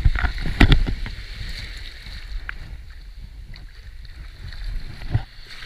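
Wind buffeting the microphone over shallow surf washing at the water's edge, with several sharp knocks and rumbles in the first second.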